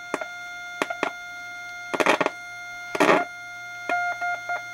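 Steady test tone coming through the Heathkit T3 signal tracer's speaker with its probe on the tube's output, broken by sharp clicks and two bursts of scratchy crackle as the probe shifts on the contact, and cutting in and out near the end. The output tone is weak, not near as loud as at the tube's grid: the sign that the tube is not amplifying.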